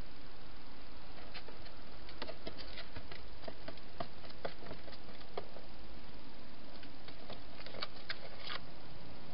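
A hedgehog's feet tapping and scratching on the plastic floor of a feeding box as it walks out. The sound is an irregular scatter of small clicks over a steady hiss.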